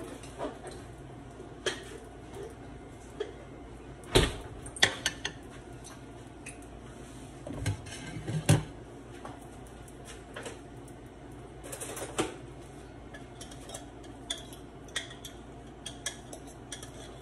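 Dishes and kitchen utensils clinking and knocking at irregular moments, the loudest knocks about four and eight seconds in, with lighter clicks after.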